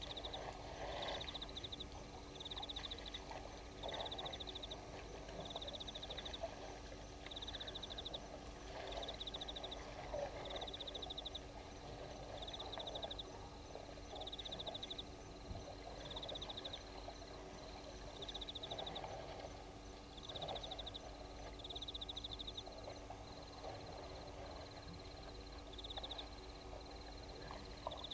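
Night chorus of frogs and insects: a short high-pitched pulsed trill repeats every second or two, running almost continuously near the end, over a fainter steady high chirping. Irregular bursts of lower noise come and go underneath.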